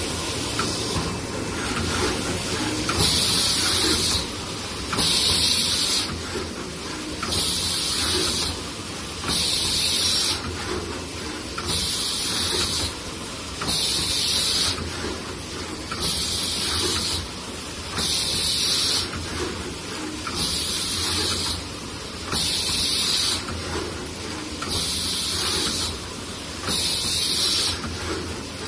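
Solar cell scribing machine running its automatic cycle: a hiss about a second long repeats roughly every two seconds, about a dozen times, over a steady machine hum with light clicks.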